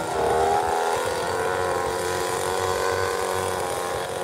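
Scratch-built radio-controlled model airplane's motor running with the propeller spinning: a steady whine that rises briefly in pitch near the start, then holds.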